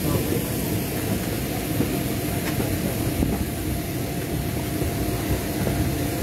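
Steady low rumble with a faint steady hum: the outdoor background noise of an airport apron beside a parked airliner.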